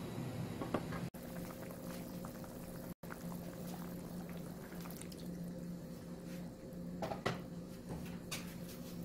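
Spicy sauce bubbling at the boil in a frying pan, with soft tofu slid in from a bowl and a few short knocks and splashes, over a steady low hum.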